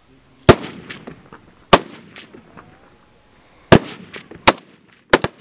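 SVD sniper rifles firing single shots along a firing line: six shots at uneven intervals, the last two almost together, each trailing off in an echo.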